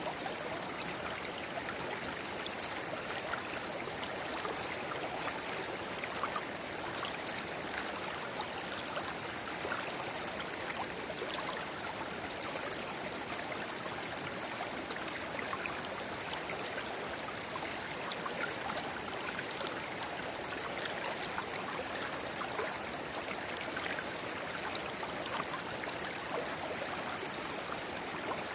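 Shallow river babbling steadily, with a small spring-fed rivulet pouring into it: a continuous rush of running water with small splashes and trickles throughout.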